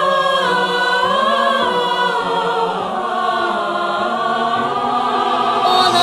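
Layered female voices singing sustained wordless harmonies, like a small choir, with slow chord changes and vibrato on the held notes.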